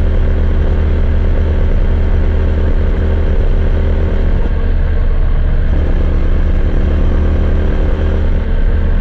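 KTM Duke 390's single-cylinder engine running steadily through its stock exhaust, at an even, unchanging engine speed.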